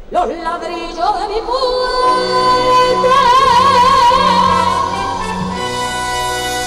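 A woman's copla singing voice slides up into a long held high note that swells into a wide vibrato, with the band's low accompaniment coming in underneath.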